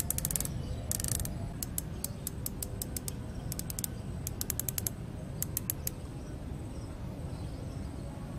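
Elevation turret of a Discovery VT2 4-16x50 SFIR riflescope being turned by hand, its detents giving sharp clicks. The clicks come in short quick flurries and single clicks and stop about six seconds in.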